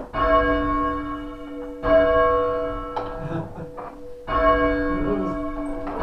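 Church tower bell, swung by its rope from the ringing chamber, striking three times about two seconds apart. Each stroke rings on with a long, steady hum.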